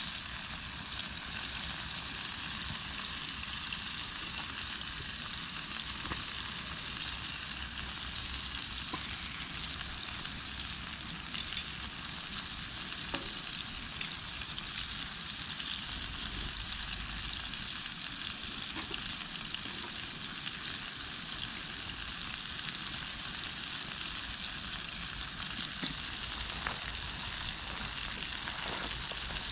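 Formed meat sizzling over a campfire: a steady frying hiss with scattered small pops and crackles.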